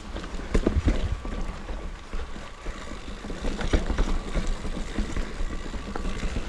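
Full-suspension mountain bike, a Canyon Spectral, rolling over grass and stone slabs: tyre rumble and wind noise on the camera's microphone, with short knocks and rattles as the bike jolts over the stones, hardest about half a second to a second in and again near four seconds.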